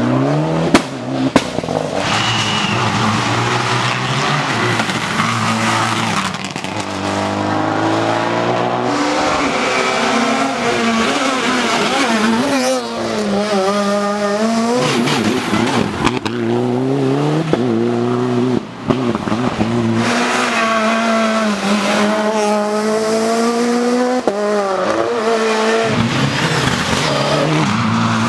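Rally car engines revving hard at full throttle as the cars pass, their pitch climbing and dropping again and again through the gear changes. There are a couple of sharp cracks in the first couple of seconds.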